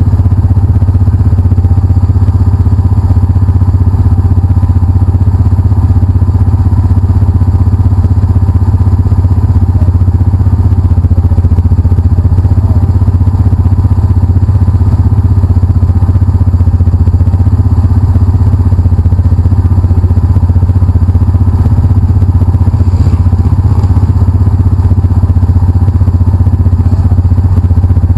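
Side-by-side UTV engine idling steadily, heard from inside the cab as an even, unchanging low drone.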